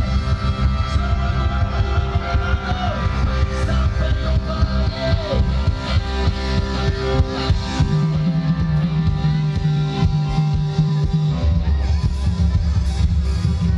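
Live rock band playing loud: electric guitars, bass guitar and drum kit together, with a bass note held for a few seconds past the middle.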